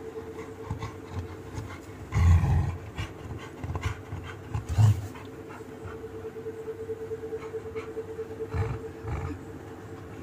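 A Labrador retriever grumbling with short, low growl-like groans, three of them: about two seconds in, near five seconds and near nine seconds, while its paws are being wiped.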